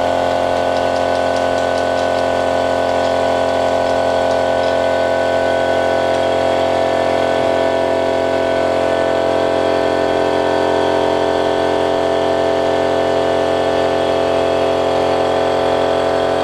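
Steady drone of a running machine motor in a press workshop, several steady tones at once with no change in speed or load. A few faint light clicks in the first few seconds, as small metal parts are handled on the press die.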